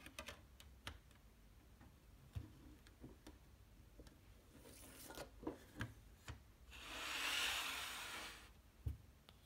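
Clear plastic CD jewel case being handled: a few small clicks as the disc is pressed onto the tray's hub, then light ticks and taps of the case. About seven seconds in comes a longer brushing rustle, the loudest sound, and just before the end a single soft knock.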